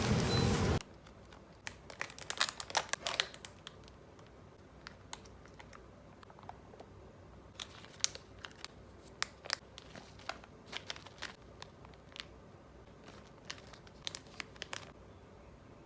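Plastic food packaging crinkling and crackling as it is handled and opened, in irregular clusters of short crackles. A loud, even noise cuts off abruptly under a second in.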